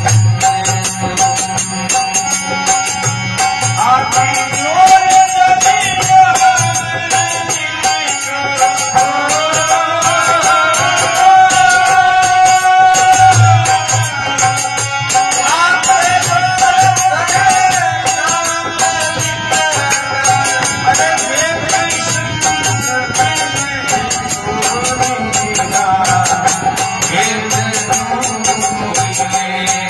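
Devotional folk bhajan: a man singing in long sliding phrases to a harmonium, which holds a steady note under the melody. Percussion keeps a fast, even beat throughout.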